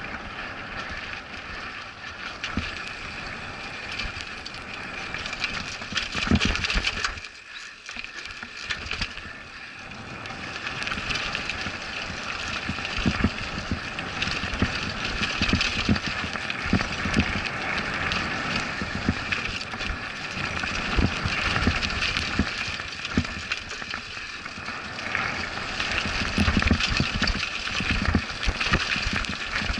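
Mountain bike descending a rough dirt trail: tyres rolling and crunching over dirt with repeated knocks and rattles from bumps, over a steady hiss. There is a quieter stretch about seven seconds in before it picks up again.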